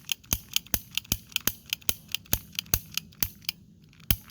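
Toy cap gun fired rapidly, with sharp snaps and clicks about four a second and a short pause near the end; the cylinder is turning, but not every cap goes off.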